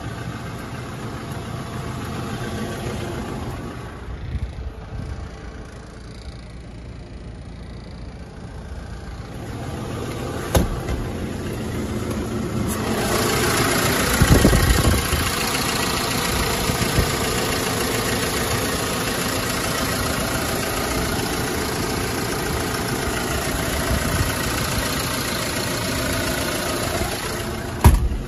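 The Hyundai Porter II's CRDi diesel engine idling. There is a sharp thump about ten seconds in, and a brief low surge about fourteen seconds in, after which it runs louder and steady. A sharp knock comes near the end.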